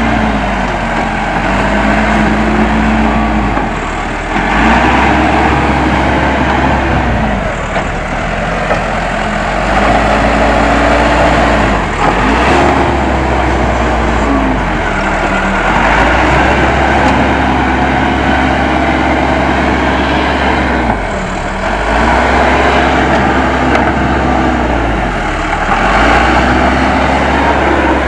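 Case 580M backhoe loader's diesel engine revving up and falling back again and again, every few seconds, as the machine works spreading earth.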